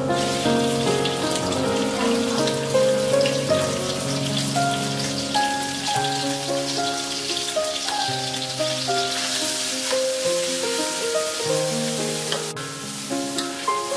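Minced garlic and then minced pork frying in hot oil in a steel wok, a steady sizzle with the spatula stirring; the sizzle gets louder about two-thirds of the way in. Background music plays throughout.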